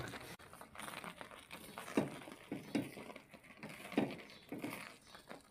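A spoon working thick, sticky strawberry jam in a steel pan: faint wet handling noise with a few light, irregular clicks of the spoon against the metal.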